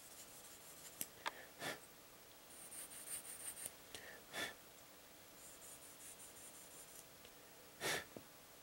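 Plastic model kit parts being handled and fitted by hand: a few faint clicks and taps scattered through, with light scraping and rubbing of plastic about two to three and a half seconds in.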